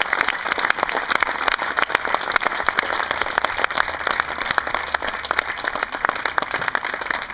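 Crowd applauding, many hands clapping densely and evenly.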